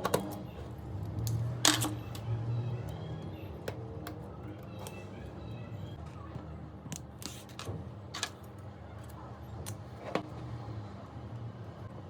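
Scattered sharp clicks and taps of small tools and metal parts being handled while an iPhone 4 is disassembled, over a low steady hum.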